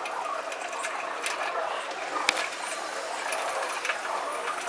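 Pigeons pecking seed off a tiled ledge: rapid, irregular clicks of beaks striking the tile, played at double speed, with one sharper, louder click a little after two seconds in.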